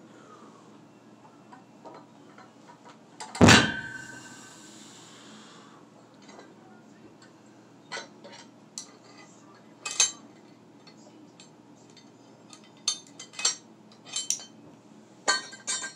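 A loaded pin stacked with cast iron weight plates, about 256 lb, comes down onto the floor platform with one loud metal clang about three and a half seconds in, ringing on for a second or two. Later, a scatter of light metal clinks as the rolling grip handles and carabiner are handled and unclipped.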